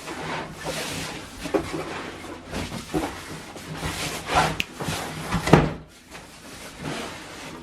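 Packaging of a large boxed TV being handled and moved: irregular rustling and scraping with several short knocks, the loudest about five and a half seconds in.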